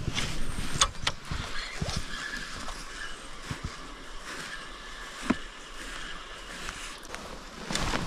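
Water of a small forest stream splashing and sloshing, with low knocks of handling and wind on the microphone and a few sharp clicks, the sharpest a little under a second in and about five seconds in.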